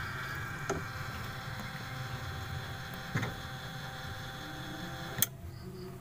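Sharp top-load automatic washing machine's drive motor and pulley running on test: a steady whirring hum with a few sharp clicks. About five seconds in, a louder click comes and the hum turns quieter.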